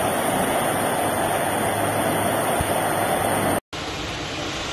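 Steady rushing of brown floodwater pouring down a flooded street. About three and a half seconds in it cuts off sharply, and a similar steady rush of water follows.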